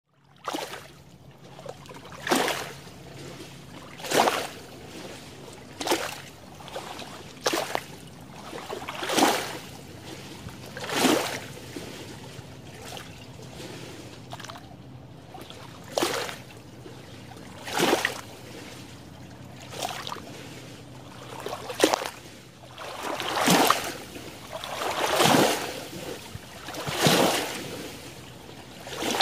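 Small lake waves lapping and splashing against the shallow shore among water plants, one wash about every two seconds, with a short calmer spell in the middle.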